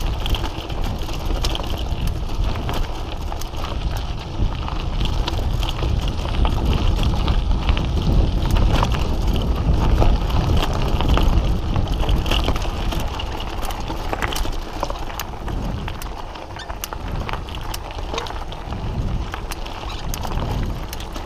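Mountain bike rolling fast down a gravel and dirt road: a steady rush of wind on the microphone, with the tyres crunching over gravel and the bike rattling over bumps in many small clicks and knocks. The rush is loudest around the middle.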